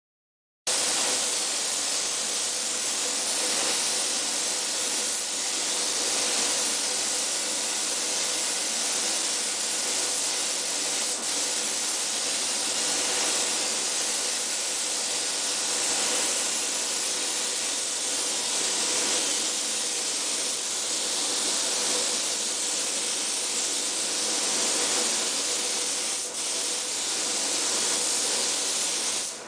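Compressed-air spray gun hissing steadily as it sprays paint, starting about a second in, over a faint steady hum.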